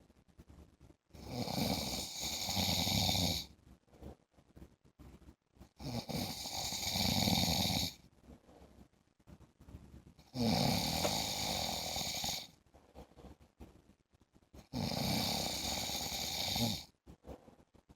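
A man snoring regularly: four long snores, each lasting about two seconds and coming about every four and a half seconds, with quiet breathing gaps between.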